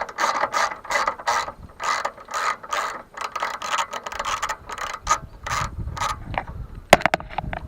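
Ratchet wrench being worked on a nut or bolt in quick back-and-forth strokes, about three to four clicks a second, slowing after a few seconds, then a sharp metallic clink near the end.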